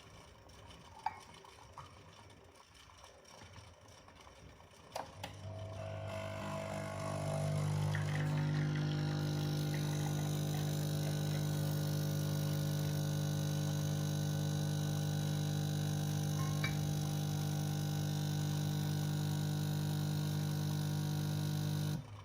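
Nespresso Essenza Mini capsule machine brewing. After a couple of clicks, its pump buzz starts about five seconds in, builds over a few seconds to a steady drone, then stops abruptly near the end.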